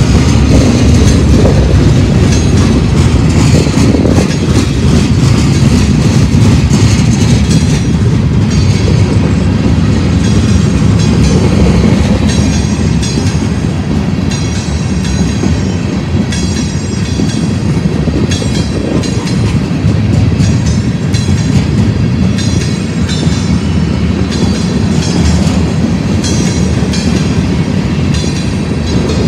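Freight cars of a manifest train rolling past close by: a steady heavy rumble of steel wheels on the rails, with repeated clatter throughout.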